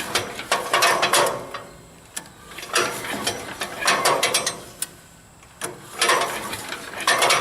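Recoil starter of a Troy-Bilt CS-4325 wood chipper's 250cc Briggs & Stratton 150-series engine, pulled about five times, each pull a short whirring rattle as the engine turns over. The engine does not catch. The machine sat for years with ethanol gasoline in it, which points to carburetor trouble.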